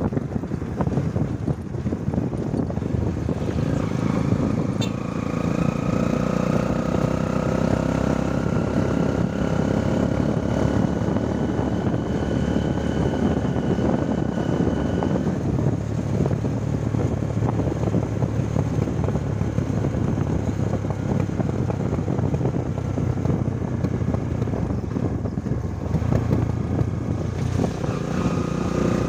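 Motorcycle engine running steadily while riding along the road, with a higher whine over the first half.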